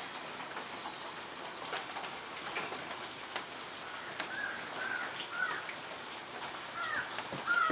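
Light rain pattering steadily, with a few short high chirps from about four seconds in.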